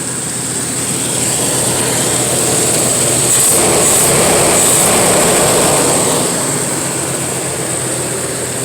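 A passing vehicle swells up and fades away over a steady outdoor background with a high-pitched hiss.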